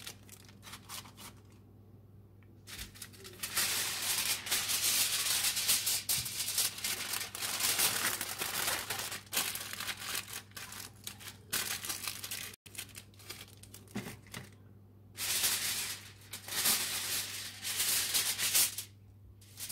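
Aluminium foil crinkling and crackling as it is rolled and folded tightly around beets, in spells of several seconds with short pauses between.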